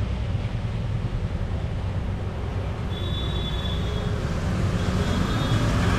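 Heavy rain falling, a steady hiss over a low rumble.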